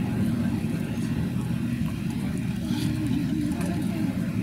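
Steady low rumble of road traffic, with faint voices murmuring in the background.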